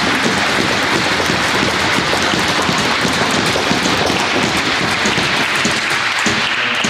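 Crowd applauding, a steady dense patter of many hands clapping.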